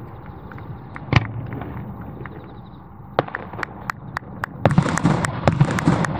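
Aerial fireworks: one sharp bang about a second in, then scattered pops that thicken into a dense crackle from about halfway through.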